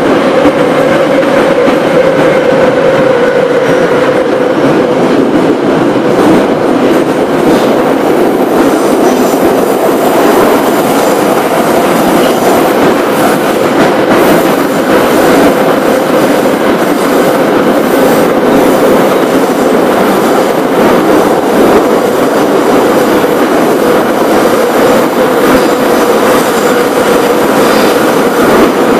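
Moscow Metro 81-717.5/714.5 subway train running at speed, heard from inside the car: loud, steady rolling noise with a steady tone running under it.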